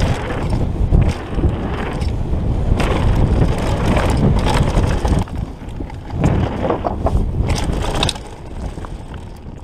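Downhill mountain bike ridden fast over a dry dirt trail: wind buffeting the camera microphone over tyre noise, with rattles and knocks from the bike over rough ground. It gets quieter about eight seconds in and fades out at the end.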